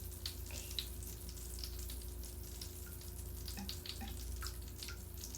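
Mr. Bubble Magic Bath Crackles crystals dissolving in bath water with scattered, irregular tiny crackles and pops, like popping candy, over a steady low hum.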